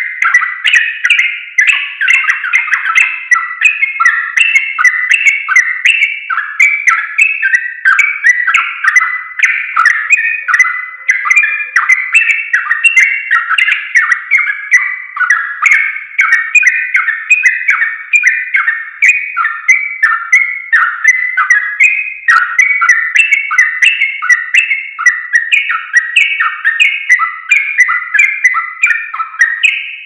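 Yellow-vented bulbul singing a long unbroken run of quick, short chattering notes, the continuous 'ropel' style of song.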